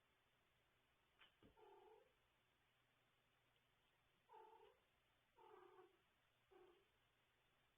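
Kitten meows: four short, faint calls spread over several seconds.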